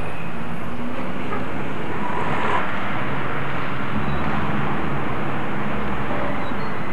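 Steady engine and road noise of passing traffic, with a low engine hum that shifts in pitch.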